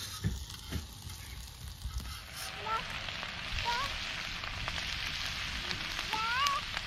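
Farm fowl giving short calls, about four of them from around three seconds in, each bending up and then down in pitch, over a steady hiss.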